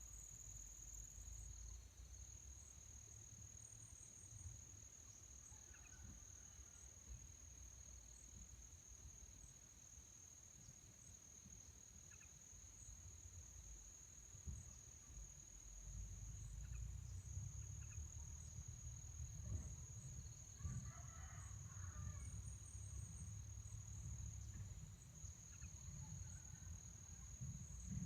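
Faint, steady high-pitched drone of an insect, one unbroken tone. A low rumble grows louder about halfway through, and a few faint chirps come in near the middle and again later.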